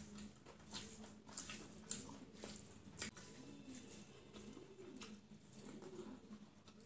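Eating sounds: fingers squishing and mixing rice and sambar on a plate, with scattered wet clicks and smacks, the sharpest about two and three seconds in. A low, soft cooing repeats in the background through the middle.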